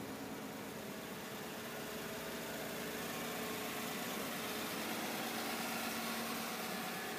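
Vehicle engine idling steadily under a steady hiss, growing slightly louder about halfway through.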